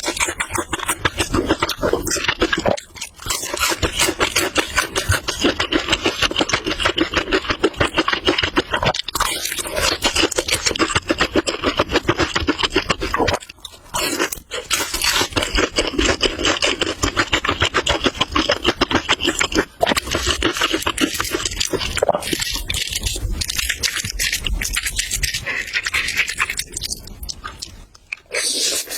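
Close-miked eating sounds of noodles being chewed: a dense, crackly run of quick wet mouth clicks and smacks. It breaks off briefly a few seconds in, about halfway through and near the end.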